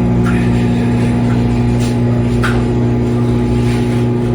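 Galanz 3-in-1 microwave air fryer running a timed microwave cook: a loud, steady low hum.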